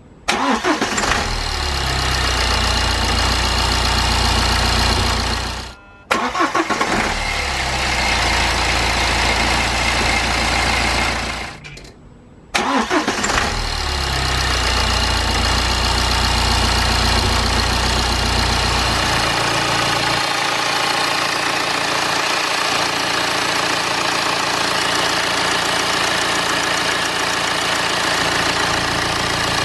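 BMW diesel engine starting up on its new crankshaft pulley and drive belt kit. It catches with a brief rise in revs and settles to idle, and this start-up is heard three times with short breaks between. After the third start it idles steadily, the deep rumble easing about two-thirds of the way in.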